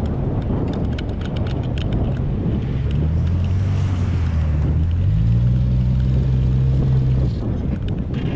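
Jeep Wrangler's engine working under load as it climbs a steep sand slope. It revs up about halfway through, holds the higher revs, then drops back near the end. Wind noise runs across the microphone.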